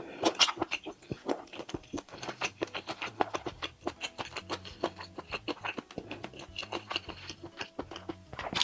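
Wet mouth sounds of eating abalone in chili oil: chewing, lip smacks and sucking, many quick clicks close together throughout.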